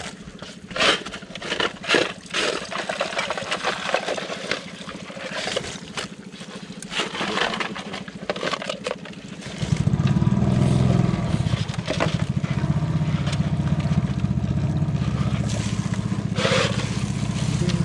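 Rustling, clicking and light splashing as a net fish trap and a woven sack are handled in shallow water. About halfway through a steady low rumble starts suddenly and carries on, louder than the handling.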